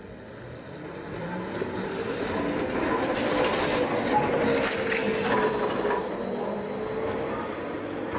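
Electric trolleybus with Škoda traction equipment driving past close by: the motor's whine and the road noise swell as it passes and ease off as it moves away. The whine slowly falls in pitch through the pass.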